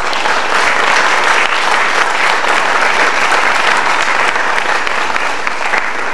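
An audience applauding: a dense, steady clatter of many hands clapping.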